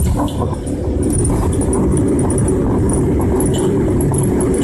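Car engine and road noise heard from inside the cabin while driving, with a light metallic jingling rattle.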